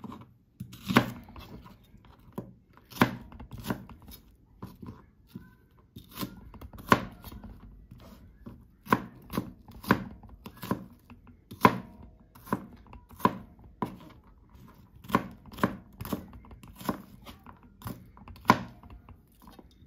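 Kitchen knife dicing onion on a white plastic cutting board: irregular sharp knocks of the blade striking the board, about one a second and sometimes two close together, with quieter slicing between.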